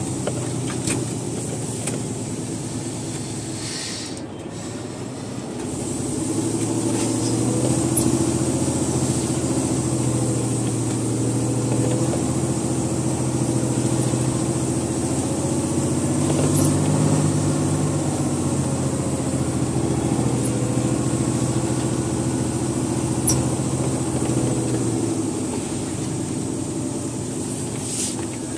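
Scania truck's diesel engine running, heard from inside the cab while the truck drives along a gravel quarry road. It grows louder about six seconds in and eases off near the end, with a few sharp clicks or rattles.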